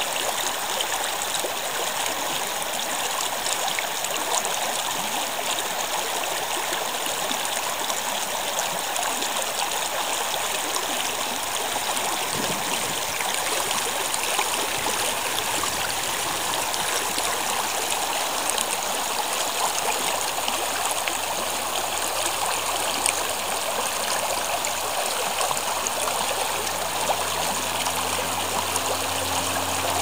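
Shallow stream running over a bed of stones and gravel, a steady rush of water.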